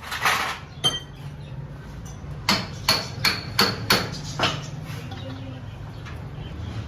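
Metal being struck with a hammer: one ringing blow about a second in, then about six quick strikes over two seconds, several with a short metallic ring. A steady low hum runs underneath.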